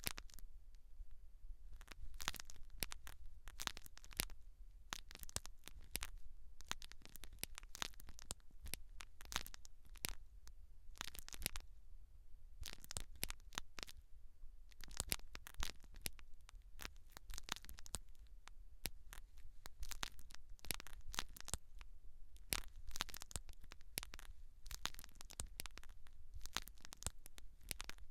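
Close-miked scalp-care ASMR: dense, irregular scratching and crackling from hands and products worked over a head, with a faint low hum beneath.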